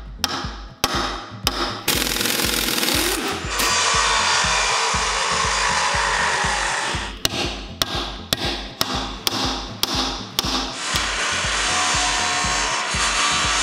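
Angle grinder cutting through rusted steel nuts and bolts on a truck air-spring mount: a loud steady hiss of the wheel on metal in two long stretches. A run of sharp metal knocks comes between them, and a few hammer blows at the start. Background music with a steady beat runs underneath.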